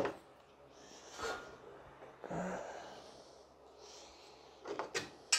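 Engine stand being turned by hand to flip a rotary engine's front iron: a sharp metal click at the start, a few soft breaths while he works, and several quick metal clicks near the end as the iron comes round.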